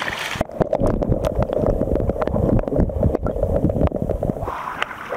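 Lake water churning and bubbling heard through a camera microphone held underwater: a muffled low rumble full of small clicks and knocks, starting about half a second in. Near the end the camera breaks the surface and the sound opens up again to splashing at the water line.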